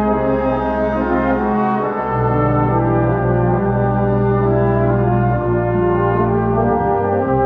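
Brass band of cornets, tenor horns, euphoniums, trombones and tubas playing held chords over a deep bass line that moves to a new note about two seconds in and again near the end.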